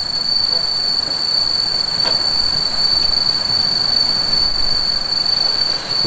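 Crickets trilling in one steady high-pitched note, over the crackle and rustle of a wood campfire being poked with a stick, with a few faint ticks.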